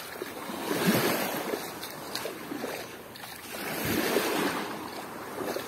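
Waves washing against the shore with wind buffeting the microphone, swelling twice.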